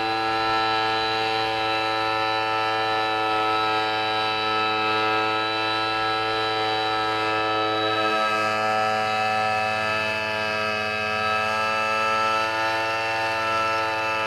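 Small petrol engine of a two-man hand-held tea harvester running at steady high revs as the cutter is carried across the tops of the tea bushes.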